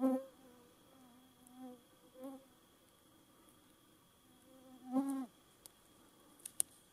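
Bull moose grunting in the rut: a series of short, low, buzzy calls, the loudest about five seconds in. Two sharp clicks near the end.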